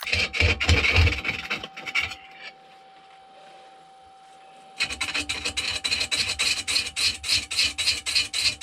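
A hand-held turning tool cutting a spinning, out-of-round poplar log on a wood lathe, making a rapid rhythmic scraping chatter as the edge strikes the high spots each revolution. The cutting stops about two seconds in, leaving only the lathe's steady hum, then resumes near five seconds in at about five hits a second.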